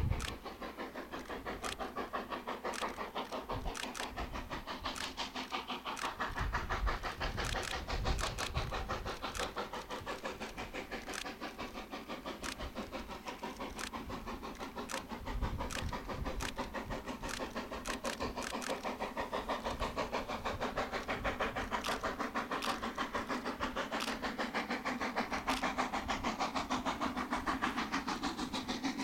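Narrow-gauge steam locomotive working hard with a train of hopper wagons, its exhaust chuffing in a fast, even rhythm that swells louder twice along the way.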